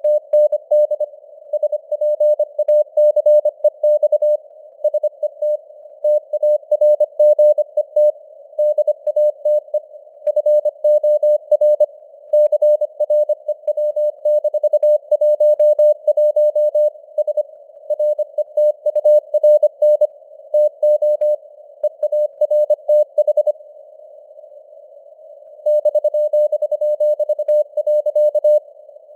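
Morse code (CW) at 25 words per minute: a single beep tone keyed rapidly on and off over a narrow band of hiss like a receiver's noise. The signal strength drifts up and down as simulated fading (QSB). Near the end the keying stops for about two seconds, leaving only the hiss, then resumes.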